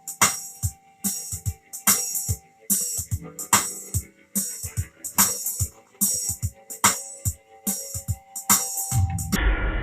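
Music with a steady drum-machine beat, a hit about every two-thirds of a second. Near the end the beat cuts off and a dense, deep sound takes over.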